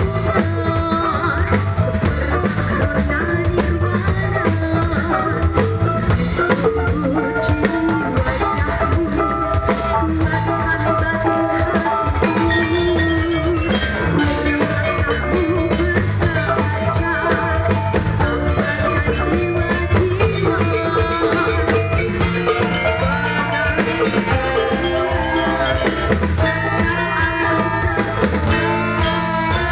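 Live band music playing continuously: drums keep a steady beat under several pitched melodic instruments.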